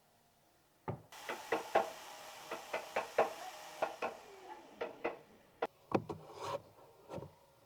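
Pieces of wood knocking and tapping against each other about a dozen times, sharp and irregular, with a rubbing hiss under the knocks from about one to four seconds in.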